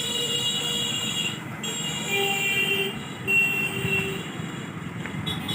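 Road traffic noise with a steady low rumble, and high steady tones that start and stop several times.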